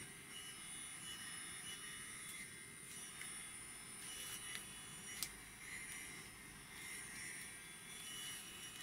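Spin motor of a miniature rate gyro running: a faint, steady high-pitched whine made of several steady tones. A light click about five seconds in.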